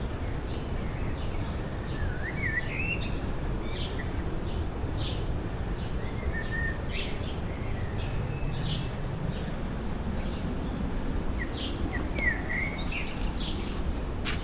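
Forest birds calling: short high chirps about once a second and a few rising whistles, over a steady low rushing noise.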